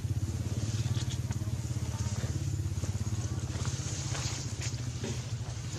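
An engine running steadily, a low even hum with a fast regular pulse, with light rustles and clicks over it.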